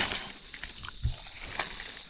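Rustling and footsteps in dry forest leaf litter, with a brief low thud about a second in, over a steady high-pitched drone.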